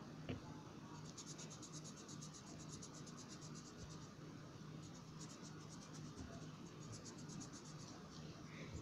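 Colouring strokes scratching on paper: rapid back-and-forth strokes, faint, in two runs of a few seconds each, with a low hum underneath.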